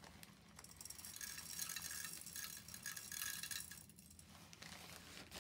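Dry wheat kernels poured from a plastic bag into the hopper of a hand-crank grain grinder, a faint light rattle of grains that dies away about four seconds in.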